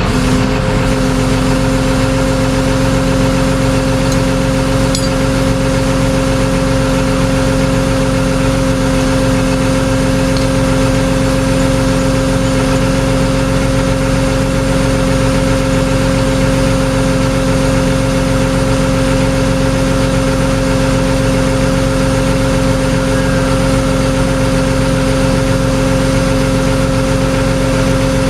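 Vehicle engine running at a constant speed, a steady idle-like hum with a fixed whining tone that never changes pitch.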